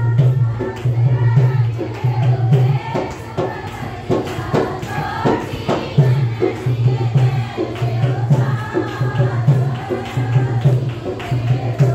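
Music with voices singing together over a steady, pulsing drum beat and sharp percussive strikes.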